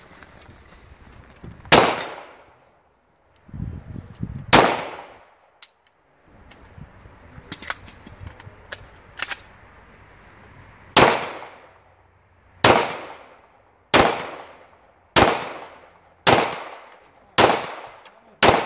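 Handgun shots: two single shots in the first five seconds and a few faint pops in the middle, then a steady string of seven shots about a second apart from about eleven seconds in, each trailing off briefly.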